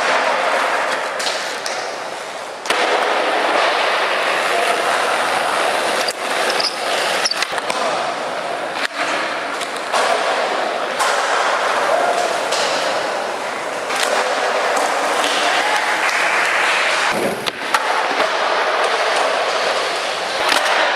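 Skateboard wheels rolling over a smooth concrete floor inside a large metal warehouse, with the sharp slaps and knocks of board pops and landings scattered through, and some voices.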